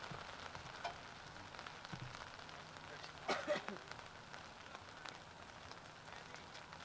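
Light rain falling on the fabric of a pop-up canopy overhead: a steady faint hiss with scattered small drop ticks. A short distant shout comes about three and a half seconds in.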